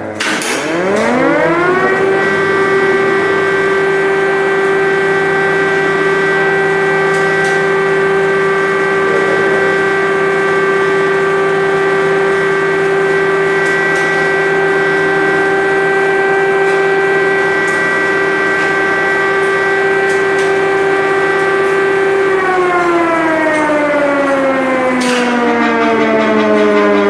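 Air-raid siren sounding an alert: it winds up to a steady wail within about two seconds, holds one pitch, then begins winding down about 22 seconds in, the pitch falling slowly.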